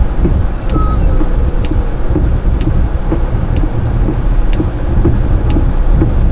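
Steady low rumble of a truck's engine and tyres on a wet road, heard from inside the cab while it rolls slowly. A light tick sounds about once a second throughout.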